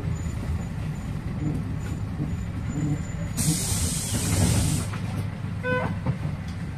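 PAZ-320402-05 bus running, its engine rumbling steadily. About halfway through comes a loud hiss of compressed air lasting about a second and a half, then a short beep.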